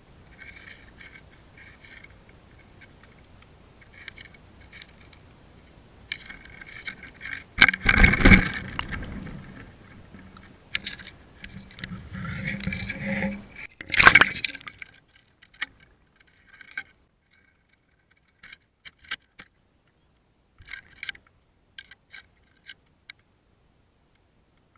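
Light clinking and scraping of hard objects being handled, with two loud knocks about eight and fourteen seconds in, then only a few faint clicks.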